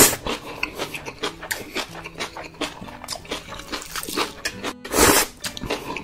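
Cartoon mukbang eating sound effects: a loud noodle slurp at the start, then a run of short wet chewing clicks, and a second loud mouth sound about five seconds in.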